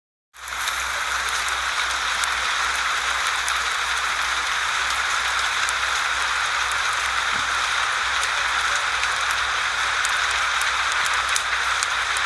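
Steady rain: an even hiss with scattered sharp little ticks through it, fading in within the first half second.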